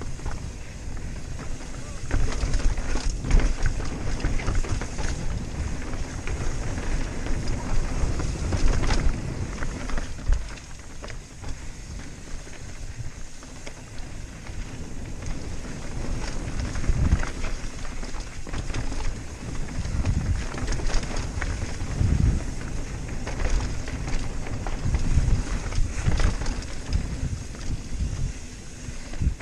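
Wind rumbling over a helmet-mounted camera's microphone during a fast mountain-bike descent on a rocky dirt trail, with the Rocky Mountain Slayer full-suspension bike's tyres rolling over dirt and rock and sharp knocks and rattles as it hits bumps.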